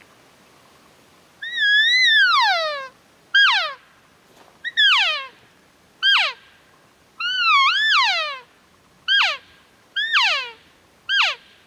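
Elk call blown by mouth to imitate a cow elk in heat: about eight high, whistly mews, each sliding down in pitch. The two longer ones, one starting under two seconds in and one about halfway through, rise before they fall; the others are short chirps.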